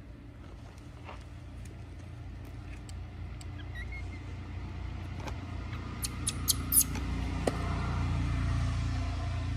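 A motor vehicle's engine running, a low rumble growing steadily louder as it draws near. A few sharp clicks come a little past halfway.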